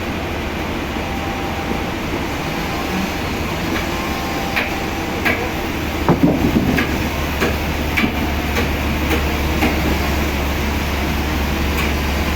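Heavy machinery running steadily with a low hum, with irregular knocks and clanks from about four seconds in.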